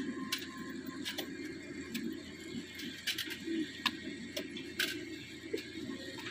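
Scattered sharp metal clicks and knocks, a few a second and irregular, as oil palm fruit bunches are lifted with spiked poles onto a hanging scale tray, over a low steady hum.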